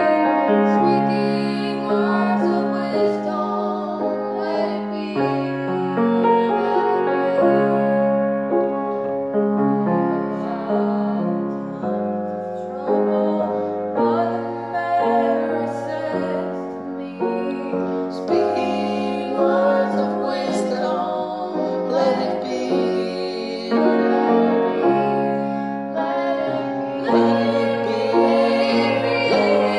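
Piano played in sustained chords while a woman sings along.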